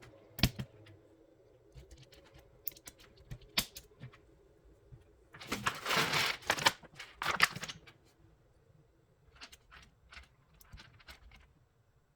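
Mechanical keyboard fitted with Outemu Peach switches clacking under key presses: a few separate clicks, then a dense run of rapid clacks about halfway through, then scattered clicks again.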